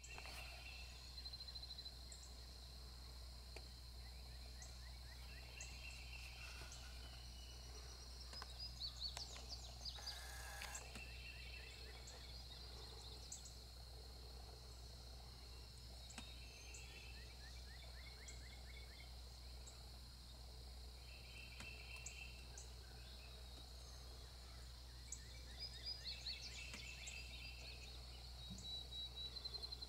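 Faint outdoor ambience: birds singing in short repeated trills every few seconds over a steady high insect drone, with a low steady hum underneath.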